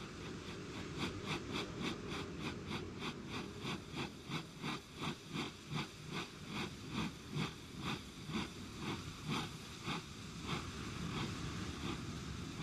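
A smoking machine chugging in a steady rhythm of about three beats a second over a low rumble; the beats fade out near the end.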